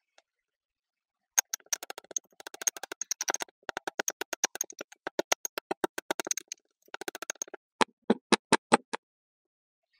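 Kinetic sand being cut: a dense run of crisp, crunchy clicks, then about half a dozen separate, louder crunches near the end.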